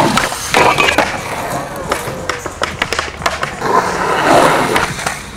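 Skateboard rolling over smooth concrete, the wheels running steadily, with several sharp clacks and knocks of the board spread through the passage.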